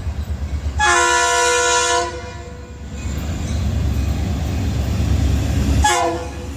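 Diesel freight locomotive's air horn sounding one long chord-like blast about a second in, and a short toot near the end, in the grade-crossing pattern. Between the two, the locomotive's engine rumble swells as it passes close by.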